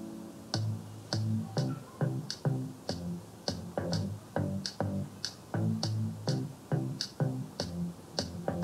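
Background music with a steady beat: a sharp high tick about twice a second over low bass notes, starting about half a second in after a held chord fades.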